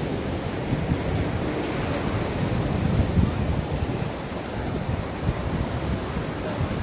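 Ocean waves washing onto the shore in steady surf, with wind buffeting the microphone.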